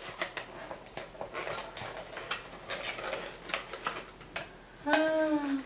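A heart-shaped metal tin being handled while a cardboard package is pulled out of it: scattered light metallic clicks and taps with cardboard rustling. Near the end, a brief voiced sound that falls slightly in pitch.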